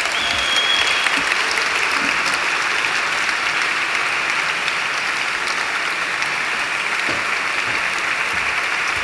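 Audience applauding steadily, with a brief high whistle near the start.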